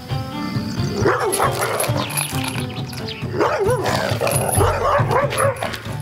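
A Malinois-type dog barking repeatedly, starting about a second in, over background music.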